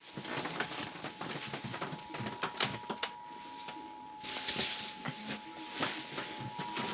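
Emergency Alert System two-tone attention signal: two steady tones just under 1 kHz held together, heard over crackling, clicking static with a burst of hiss about halfway through.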